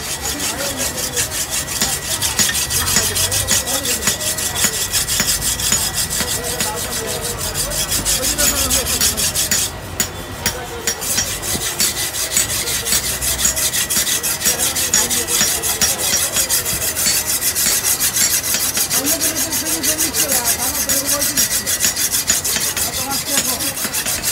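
Rapid, continuous rasping of a hand tool scraped over a steel blade, stroke after stroke, with a brief pause about ten seconds in. A faint steady high whine sits under it.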